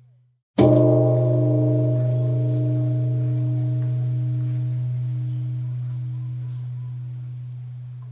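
Temple bell struck once about half a second in, just after the previous strike's ring dies away. It rings with a deep, steady hum under higher overtones that fade away over several seconds.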